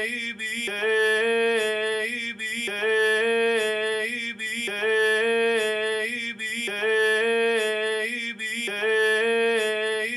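A short sung vocal phrase, recorded through a computer's built-in microphone, played back on a loop: the same phrase, a held note and a short tail, repeats about every two seconds. It plays through an EQ that is cutting its low end.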